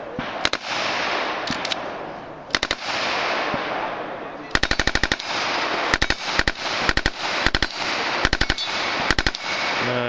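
Submachine gun fired full auto in short bursts of two to four shots, with one longer burst of about eight shots near the middle.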